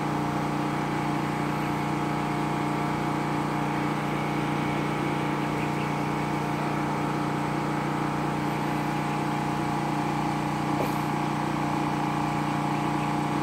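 Electric water pump motor running with a steady hum, still pumping as the tank nears full.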